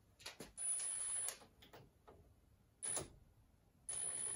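Cordless impact wrench (rattle gun) on the mill's stainless drawbar, spinning it in to pull up the tool holder. A few light clicks, two short trigger bursts with a high whine, then a longer run starting near the end.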